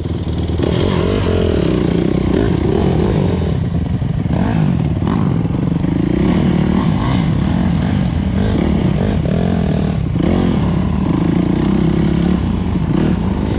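Honda CRF250X single-cylinder four-stroke dirt bike engine under way on a trail, its revs rising and falling as the throttle is worked, with a few sharp knocks and rattles from the bike over rough ground.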